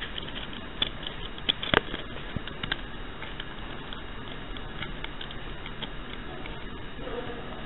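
Steady room hiss with a scatter of light clicks and taps, several close together about one to three seconds in and the loudest just under two seconds in.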